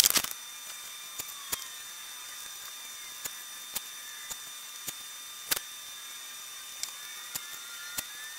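Sharpie marker drawing along plywood, with faint short squeaks and about ten scattered sharp clicks over a steady low hiss.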